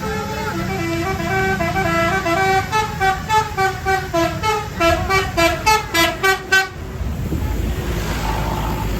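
Bus 'telolet' basuri musical air horn playing a melody of stepped notes, breaking into a run of short toots about two to three a second, then cutting off suddenly about two-thirds of the way through. A low bus engine rumble runs under it and carries on after.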